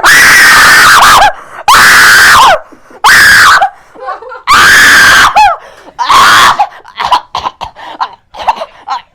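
A young boy screaming in fright, five long, very loud, high-pitched screams with short gaps between them. Near the end they give way to quieter short vocal sounds.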